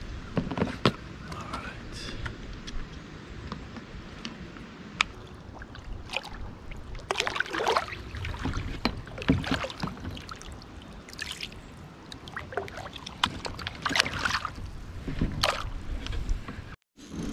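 Water splashing and sloshing beside a kayak as a speckled trout is lowered on a lip-grip tool and released, with a few sharp clicks and knocks in between.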